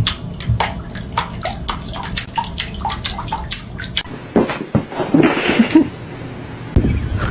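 Water splashing, with a run of short, sharp splashes or drips in the first few seconds.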